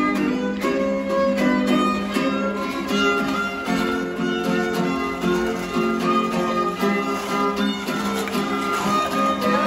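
Violin and guitar playing a traditional dance tune together, the violin carrying the melody over the guitar's accompaniment.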